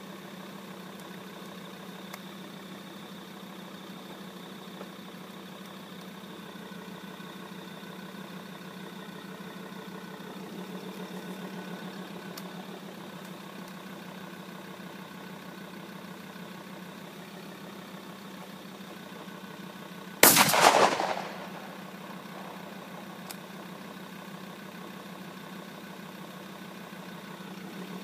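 A vehicle engine idles steadily throughout. About twenty seconds in, a 12-gauge shotgun fires one loud blast that rings on for over a second.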